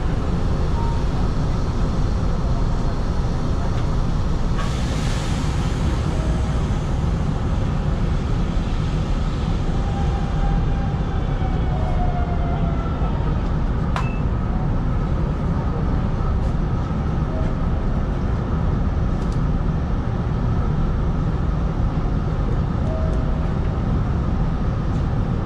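Steady low hum and rumble inside the cab of a stationary Hanshin 5500 series electric train, with a single sharp click about fourteen seconds in.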